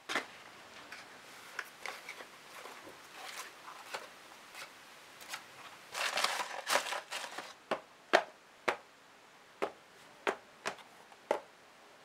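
Cardboard carton handled and opened, then a hand rustling and crinkling through crumpled packing paper and bubble wrap inside it. In the second half come about seven sharp taps, one every half second to second, as small cardboard boxes are set down one by one on a cutting mat.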